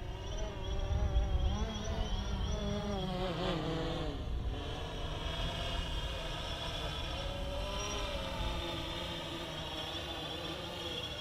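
A drone's propellers buzzing, the pitch dipping and rising as the motors change speed, most clearly about four seconds in. A low rumble sits under it in the first couple of seconds.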